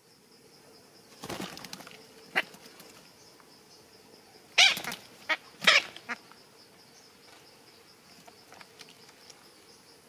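Red-breasted parakeet in its tree-hole nest, stirring and flapping: a softer rustle about a second in, then a cluster of sudden loud bursts about halfway through.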